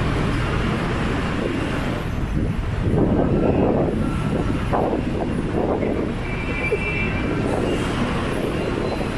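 Steady road traffic noise from busy city streets, growing louder about three seconds in as heavier vehicles pass.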